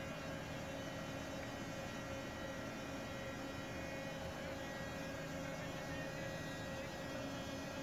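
Steady machinery hum of a heavy fuel oil purifier, a centrifugal separator, running normally in a ship's engine room, with several steady tones in it.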